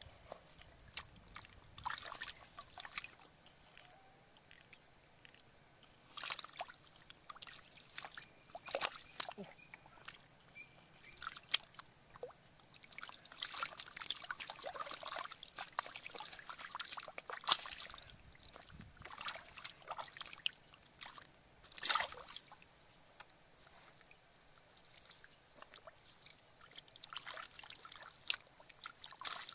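Hands sloshing and splashing in shallow, grassy water while feeling for fish, with trickling between the splashes. The splashes come in irregular bunches with quieter gaps in between.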